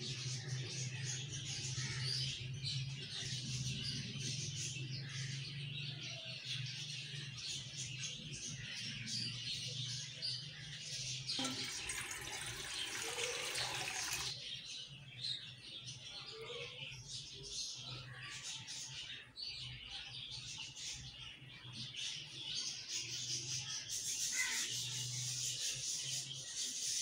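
Water poured in a stream from a jug into a large steel cooking pot for about three seconds, a little before halfway, over a steady low hum and hiss. A brighter hiss comes in near the end.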